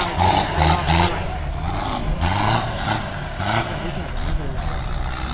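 Off-road 4x4 engines running and revving, their pitch rising and falling over a low rumble.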